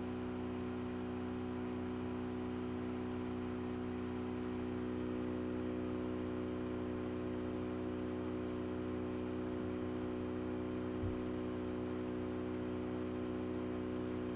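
Steady electrical hum with several fixed tones over a faint hiss, with one soft low bump about eleven seconds in.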